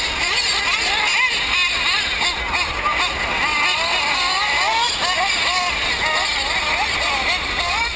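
Nitro RC off-road race cars' small glow-fuel two-stroke engines, whining up and down in pitch again and again as they rev and back off around the track, several pitches overlapping. A low steady rumble runs underneath.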